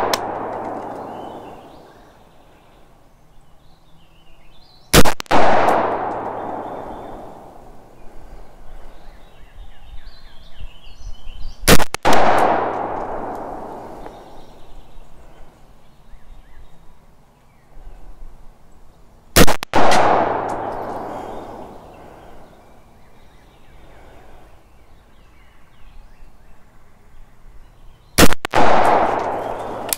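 Four single shots from a Palmetto State Armory Freedom AR-15 firing .223 steel-cased ammunition, slow aimed fire about seven seconds apart, each crack followed by a long echo dying away.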